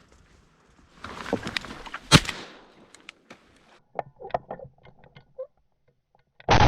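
A single loud shotgun shot about two seconds in, after a moment of rustling. A few small clicks follow, and a loud rushing noise starts near the end.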